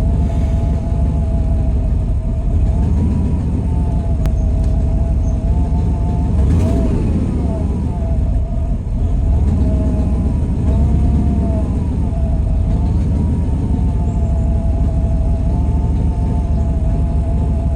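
Truck engine sound: a continuous low rumble with a whine above it that wavers up and down, from a truck that has sat a while and is hard to start.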